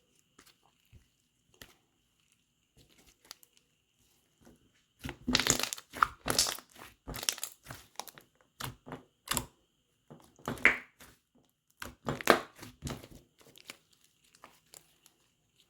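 Slime being squeezed and worked by hand, making a dense run of sharp crackles and pops that starts about five seconds in and thins out near the end.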